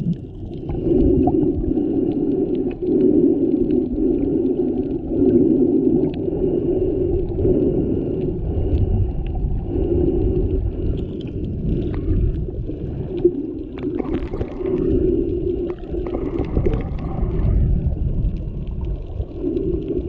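Muffled underwater sound picked up by a GoPro Hero7 held under water while snorkeling: a low rumble of moving water with a muffled hum that swells and fades every second or two, and a few faint clicks.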